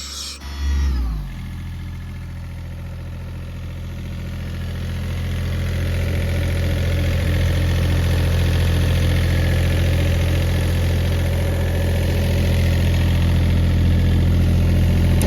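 Yanmar diesel engine of an Ingersoll Rand portable air compressor: about a second in, its note falls as it drops back to idle. It then runs steadily, growing louder over a few seconds before holding level.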